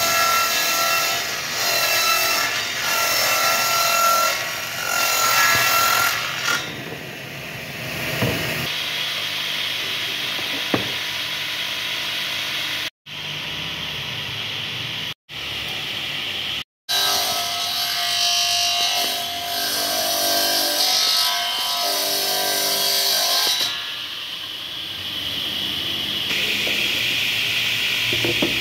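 Table saw with a belt-driven electric motor ripping wooden boards in two loud stretches, the cut carrying a steady high note. Between the cuts, and near the end, the blade spins without cutting, more quietly.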